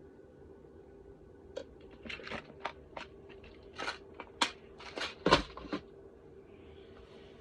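Rummaging through a box of small electronic components: an irregular run of plastic clicks, rattles and crinkles, loudest in the middle, over a faint steady hum.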